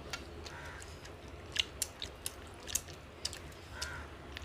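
Close-miked eating of fried tilapia: chewing and biting, with a dozen or so sharp, crisp clicks and crunches scattered through.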